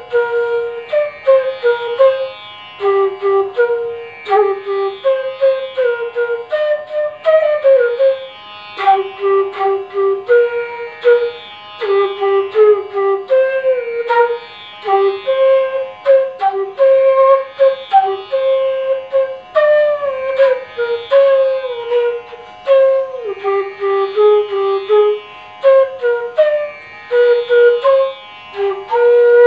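Bansuri, a bamboo transverse flute pitched in G#, playing a simple melody in Raag Yaman: short phrases of held notes, some joined by slides in pitch.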